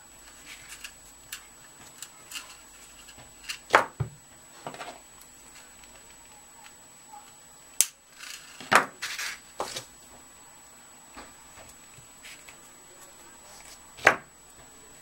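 Small hand tools and thin craft wire being handled on a work surface while wire is wound into loops for wings: scattered light clicks and taps, with a few sharper knocks about four, eight to ten, and fourteen seconds in.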